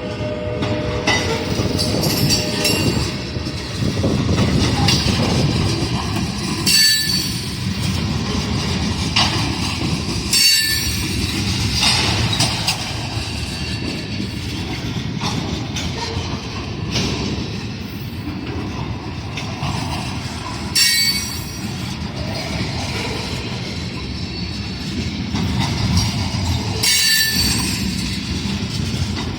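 A freight train led by an ALCO RS-11 diesel locomotive rolling along: a steady engine and rail rumble, with steel wheels clacking and squealing briefly every few seconds. The end of a horn note fades out in the first second or so.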